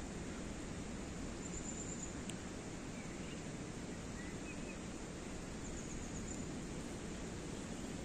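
Rural outdoor ambience: a steady low rushing noise with a few faint bird chirps and two brief high trills.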